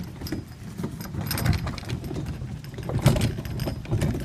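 Portable RV waste tote tank being pulled on its small wheels over dirt and gravel: an irregular rumble of rolling wheels with the plastic tank and its handle rattling and knocking.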